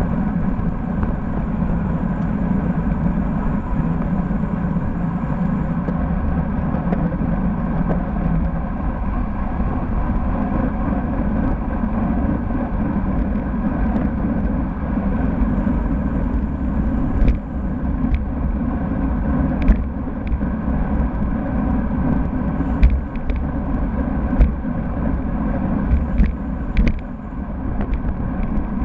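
Loud, steady wind noise on a bike-mounted camera's microphone, with tyre and road rumble from a road bike riding in a group. A few sharp knocks come in the second half.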